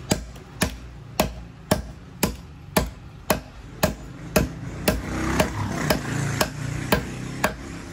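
A dao mèo knife blade forged from twisted steel chopping into wood in steady strokes, about two a second, as a test of how the edge holds up. A rustling noise rises between the strokes in the second half.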